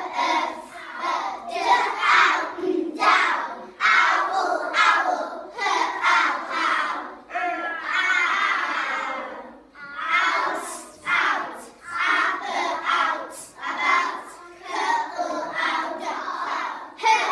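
A group of young children chanting phonics sounds such as 'ur' and 'ow' together, in short rhythmic bursts, with one longer drawn-out sound about eight seconds in.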